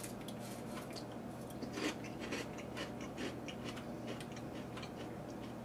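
Someone chewing a mouthful of dry Kellogg's Cinnamon French Toast Frosted Flakes: a quiet, irregular run of crisp crunches and crackles.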